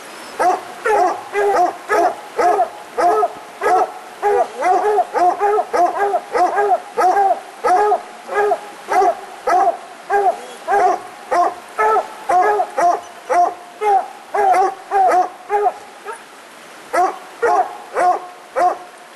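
Coonhounds barking treed at the base of a tree: a steady run of short chop barks, about two to three a second, with a brief pause near the end. This is the tree bark that tells the hunter the dogs have a raccoon up the tree.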